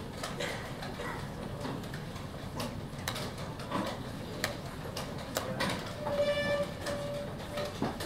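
Wooden chess pieces set down on boards and chess clock buttons pressed during blitz play: an irregular run of sharp clicks and knocks. Near the end a steady pitched tone sounds three times in quick succession.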